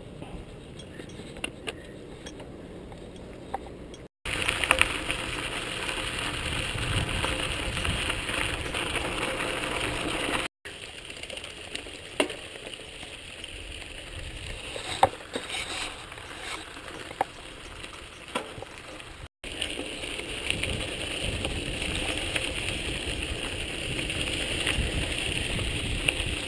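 Mountain bikes rolling on a dirt trail: a steady rush of tyre and riding noise with scattered clicks and rattles from the bikes, quieter for the first few seconds and louder after. The sound breaks off briefly three times.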